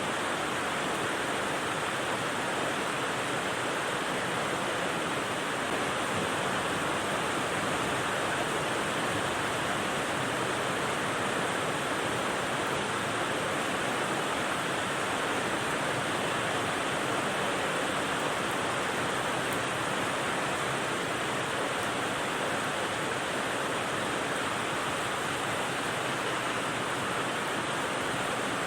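Steady rain as white noise for sleeping, an even, unbroken hiss with no separate drops or changes.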